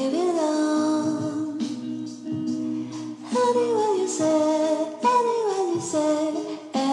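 Background pop music with a singing voice carrying the melody over a steady accompaniment.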